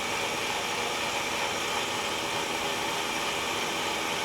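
Electric blender running steadily, grinding a cicada smoothie.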